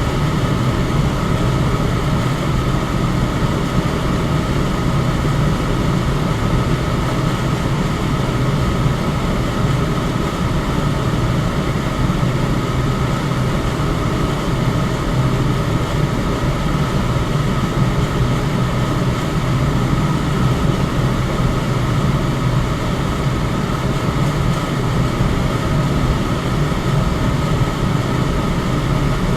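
Electric fan running steadily: an even rush of air, mostly deep, with a faint steady whine above it.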